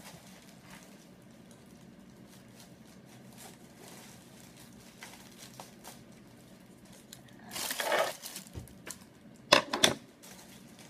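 Light snips and clicks of scissors cutting a plastic poly mailer bag. Then the bag crinkles and rustles loudly as it is pulled open, in a burst about eight seconds in and two sharp crackles shortly before the end.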